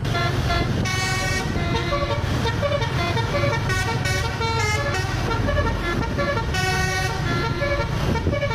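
A telolet horn playing a tune in quick, short notes of changing pitch over the steady low rumble of a vehicle's running engine.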